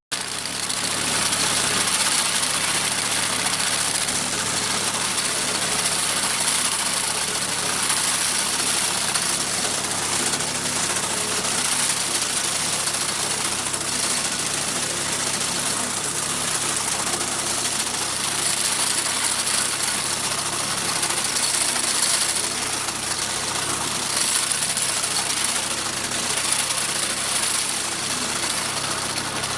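Engine of a motorised mowing machine running steadily while mowing hay.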